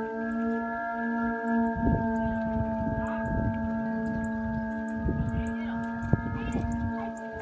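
Vietnamese kite flutes (sáo diều) sounding together from kites aloft: a steady drone of many held tones at once, each wavering slightly. Wind buffets the microphone a few times.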